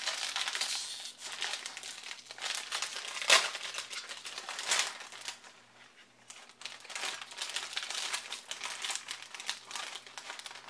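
Plastic foil snack-kit pouch crinkling as it is pulled open and handled, in irregular rustling bursts with one sharp, louder crackle about three seconds in and a brief lull about halfway through.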